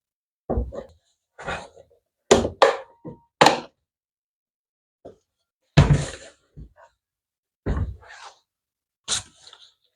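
Irregular knocks and thunks of a Bluetooth speaker's parts being handled and set down during reassembly, about a dozen separate hits.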